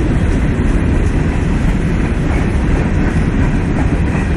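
CSX freight train's cars rolling past: a steady, loud rumble of steel wheels on the rails as the train goes by at reduced speed.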